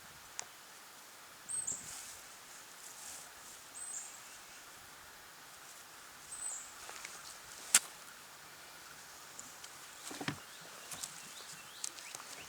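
Quiet outdoor ambience with a bird repeating a short, high chirp every two to three seconds. There is one sharp click just past the middle and a few faint scrapes later.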